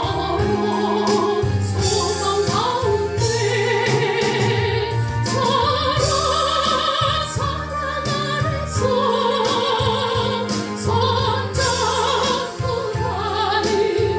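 Solo voice singing a Korean gospel song in an operatic style, holding long notes with wide vibrato over sustained instrumental accompaniment.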